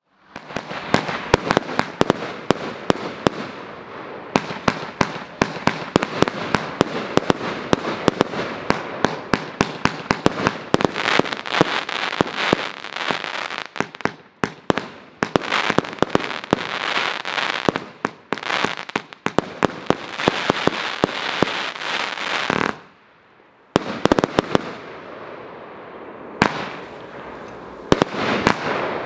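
Copenhagen Silver consumer fireworks battery firing: a rapid, dense run of sharp bangs and crackle over a steady hiss of launches. Near the end it goes quiet for about a second, then resumes firing.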